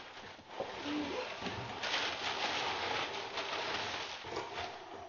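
Kraft packing paper crinkling and a cardboard shipping box rustling as a skateboard is pulled out of it, louder from about two seconds in.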